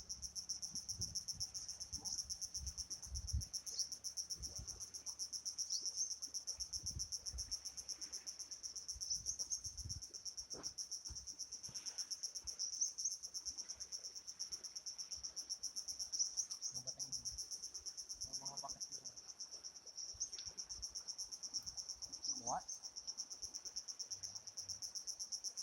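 Crickets chirring in a continuous, high-pitched, rapidly pulsing trill, with a few faint knocks underneath.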